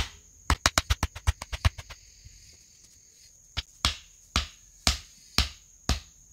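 Wooden stakes being pounded into the ground: a quick run of about a dozen sharp knocks, then steady single blows about two a second. An insect keeps up a thin, steady high buzz throughout.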